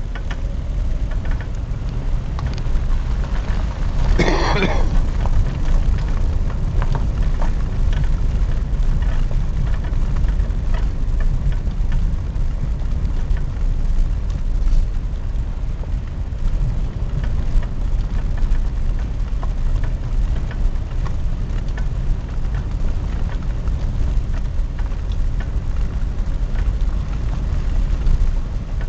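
A vehicle driving along a park road, heard from inside: a steady low rumble of tyres and engine with small rattles and ticks. There is a brief louder noise about four seconds in.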